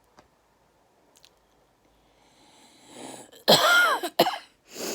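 A woman coughing from a chest infection: a breath drawn in, then a loud, hoarse cough about three and a half seconds in and a shorter cough right at the end.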